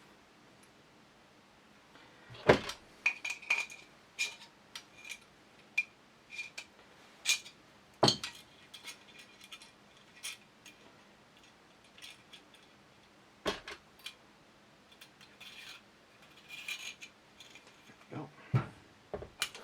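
Small steel gun parts clicking, clinking and knocking as they are handled and fitted during reassembly of a Sjögren inertia shotgun, with a few sharper knocks of metal set down or tapped into place.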